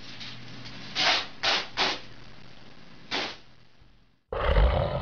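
Four short hissing bursts, then a sudden loud, low animal call near the end.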